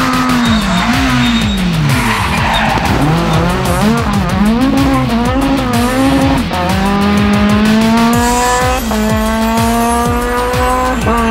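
Renault Megane Maxi rally car's four-cylinder engine at full throttle: revs swing up and down through a corner in the first half, then climb in long rising pulls with upshifts about two seconds apart.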